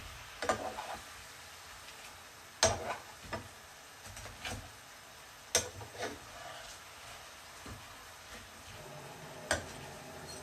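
Fish frying in oil in a pan, a steady sizzle, with metal utensils knocking and scraping against the pan several times as the pieces are turned; the sharpest knocks come a little under three seconds and about five and a half seconds in.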